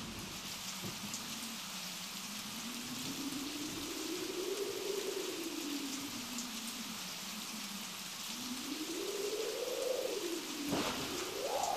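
A steady rain-like hiss, with a low howling tone that slowly swells up and sinks back in pitch several times, climbing highest near the end.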